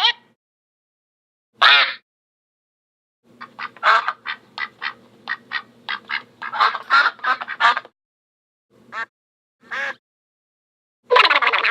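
Duck quacking sound effect: a single quack, then a fast run of quacks for about four seconds, then two more quacks.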